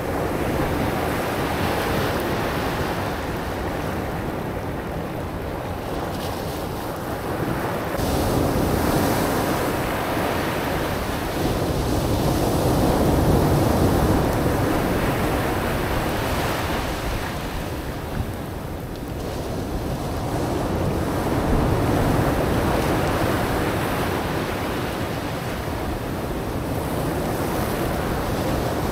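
Ocean surf breaking and washing up a black-sand beach, swelling and easing with each wave, with wind buffeting the microphone.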